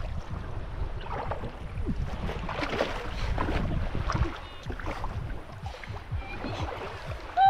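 Wind buffeting the microphone over shallow seawater sloshing and splashing with irregular small splashes as someone wades.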